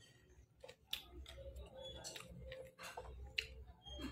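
Close-up chewing and mouth sounds while eating roasted pork: scattered wet clicks and lip smacks.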